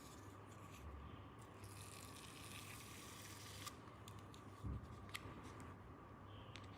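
Faint handling of small plastic toy pieces and packaging: a few light clicks, a soft rustle from about two to three and a half seconds in, and a dull low thump a little before five seconds in.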